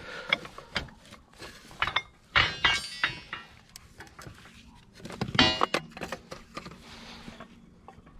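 Metal scrap being handled: irregular clinks and knocks, with two louder ringing clangs about two and a half and five and a half seconds in.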